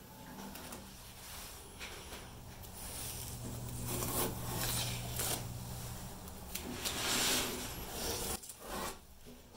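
Aerosol spray-paint can spraying in several hissing bursts, the longest and loudest about seven seconds in.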